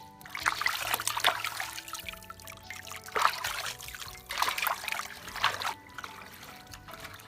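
Water splashing and trickling as a slab of cured pork (larou) is rinsed and rubbed by hand, in three bouts that stop a little before the end. Soft background music runs underneath.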